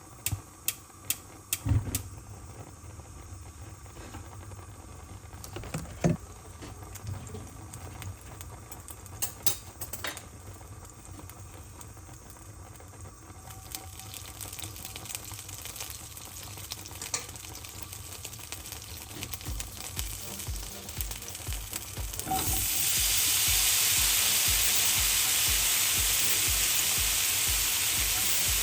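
Mushrooms frying in a hot skillet. A few sharp clicks and knocks of pan and utensils come in the first ten seconds, then a soft hiss builds. About 22 seconds in, the sizzle jumps up to a loud, steady frying.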